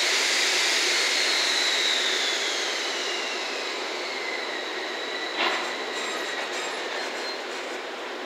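Wheels of a slow-moving rail-carrying works train (Chiki 5500 flatcars behind an EF65 electric locomotive) squealing over a steady rolling rush: a high squeal that slides down in pitch over the first four seconds, then holds a steadier high tone. A single sharp clank about five seconds in.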